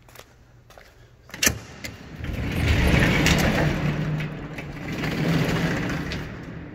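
Sectional overhead dock door being raised: a sharp clack about a second and a half in, then a loud rumbling rattle that builds, holds for a few seconds and fades as the door rolls up.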